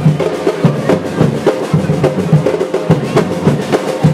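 Drums beating a fast, continuous rhythm, with a steady held note sounding underneath.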